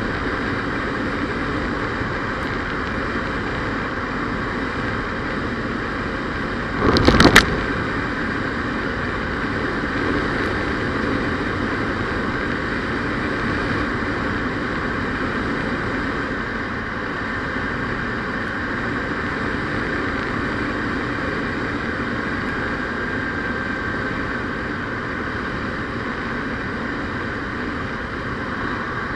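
Steady engine and road noise of a moving car heard from inside the cabin, with a brief burst of loud knocks about seven seconds in.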